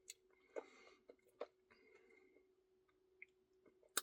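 Faint mouth sounds of someone eating ice cream: a few soft, wet smacks and clicks in the first second and a half, then near quiet, and a sharper click near the end, over a faint steady hum.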